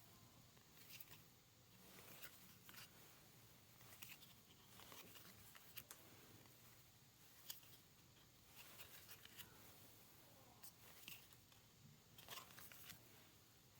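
Faint, scattered rustles and light clicks of photocards and their packaging being handled.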